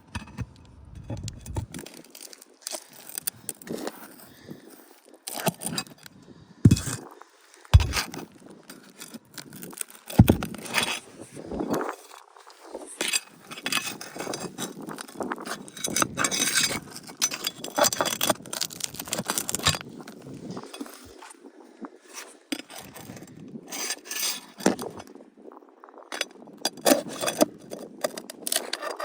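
Roofing nails and metal tools clinking, clicking and scraping against asphalt shingles as old nails are pulled and handled, an irregular run of sharp clicks and scrapes with a few harder knocks.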